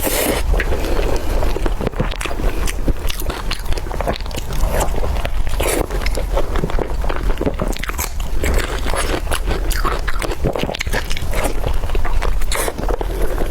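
Close-miked eating sounds: a person biting and chewing food, a dense run of small clicks and crunches.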